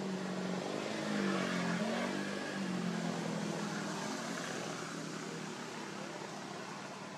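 A motor vehicle's engine running past, a low pitched hum with some changes in revs that swells in the first couple of seconds and then slowly fades.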